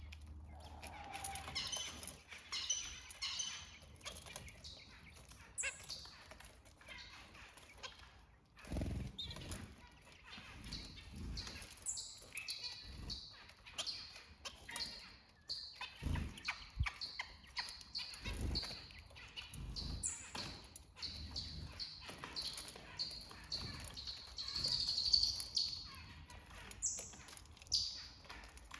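Several small birds chirping and calling: many short high notes, some repeated and some sweeping quickly downward. A few brief low thumps come in the middle.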